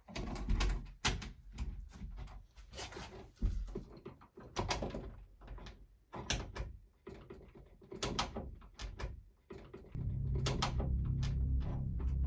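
Doorknob and lock of a locked door rattling and clicking in quick, irregular bursts as someone works at them by hand. About ten seconds in, a low, steady droning music starts underneath.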